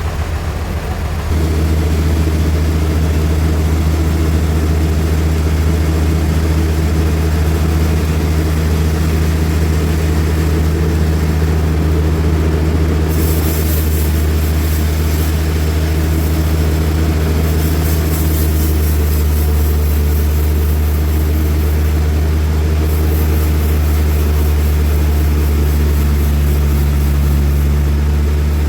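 Large sawmill machinery running with a steady low engine drone. It grows louder about a second in, and a high hiss joins around halfway.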